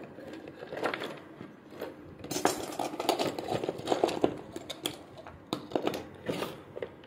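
Hands rummaging through small tools and parts on a workbench, searching for insulating sleeving: an irregular run of clicks, knocks and rattles of hard objects being moved about, busiest in the middle.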